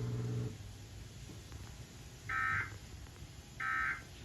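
Emergency Alert System SAME data tones: two short buzzy bursts about a second apart, the end-of-message code that closes the alert broadcast. Before them, a steady low buzz stops about half a second in.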